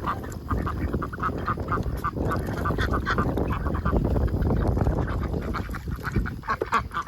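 A flock of domestic ducks quacking, with many short calls overlapping and repeating throughout, over a steady low rumble.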